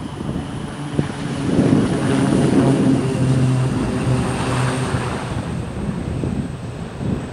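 Pilatus PC-9 turboprops, several aircraft at once, running at high power on the runway with a steady propeller drone. The drone swells louder about a second and a half in, then eases off slightly.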